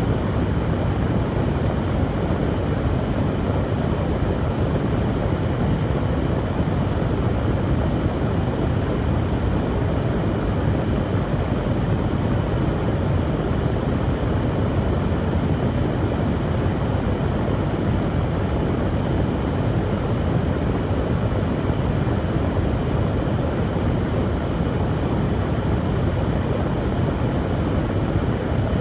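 Hair dryer running continuously at a steady setting, a constant airflow and fan-motor noise with its weight low down and no changes.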